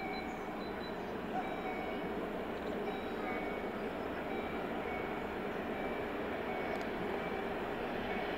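060DA diesel-electric locomotive hauling a train of tank wagons as it approaches from a distance: a steady rumble and rail noise that grows slightly louder. A short high beep repeats about once a second.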